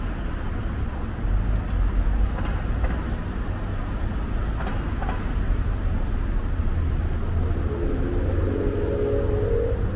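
City street traffic: a steady low rumble of passing vehicles, with a short wavering tone joining near the end.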